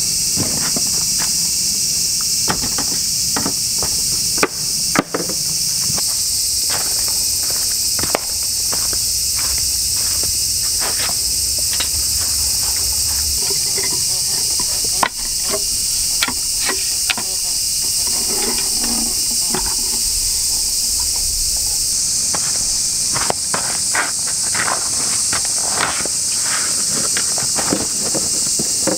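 A steady, high-pitched chorus of insects chirring, with scattered sharp knocks and clicks of camp gear and a wooden table being handled and set up.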